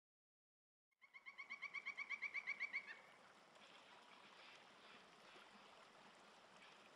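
A rapid animal trill of about ten short pulses a second that grows louder for about two seconds and then stops, followed by a faint steady hiss.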